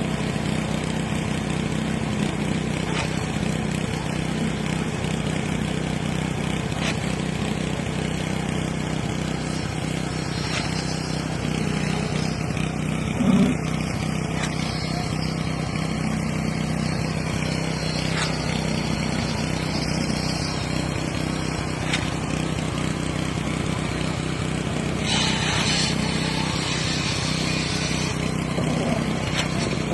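Steady engine drone of construction machinery at a concrete pour, such as a concrete pump or mixer truck. A brief louder knock comes a little before halfway, and about two seconds of hissing noise come near the end.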